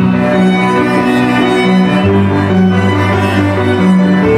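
Slow instrumental string music, with a cello holding long notes over a low bass line that moves to a new note about two seconds in.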